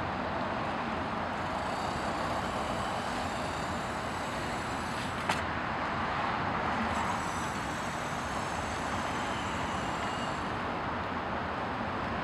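Steady vehicle and traffic noise with no clear engine note, broken by a single sharp click about five seconds in.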